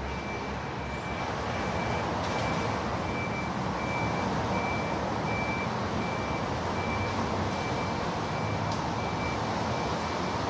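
Distant city street traffic rushing steadily under light rain, heard from about 50 m away. Over it, a short high electronic beep repeats about twice a second.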